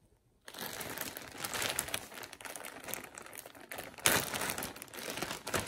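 Clear plastic garment bag being pulled open by hand, crinkling continuously from about half a second in, with a loud crackle about four seconds in.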